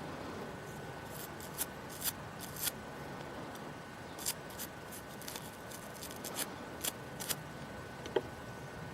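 Light scratching and a dozen or so short clicks as encrusted mud is picked out of a hole in a small metal artefact, over a steady background hiss.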